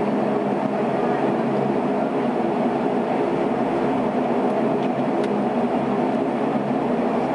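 Steady drone of a Saab 340B's General Electric CT7 turboprop engines and propellers heard inside the cabin, with several steady hum tones, at low power on the runway before the takeoff roll.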